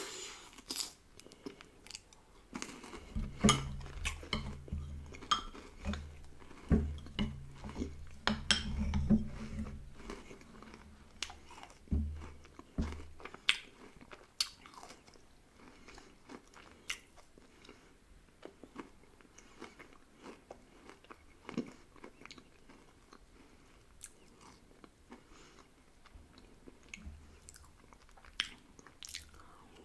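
Close-miked eating of chocolate ice cream from a spoon: wet mouth smacks, chewing and crunching on the bits in the ice cream, with the metal spoon scraping the glass mug. A low hum comes and goes under the chewing during the first half.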